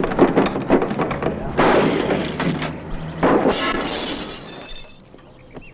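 A run of quick knocks and bangs on a small car's body and door, then two louder crashes, the second with a ringing tail that dies away.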